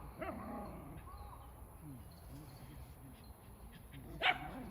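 A dog barks once, short and loud, near the end. Before it come a few faint high calls in the first second, over a steady low wind rumble.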